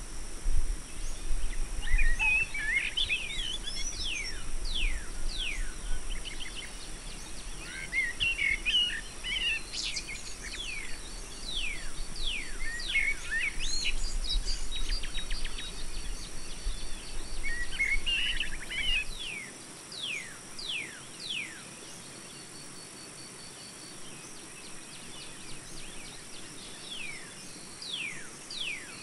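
Small songbirds chirping and twittering, with many quick downward-sweeping chirps, over a steady high hiss. A low rumble underneath stops about two-thirds of the way through.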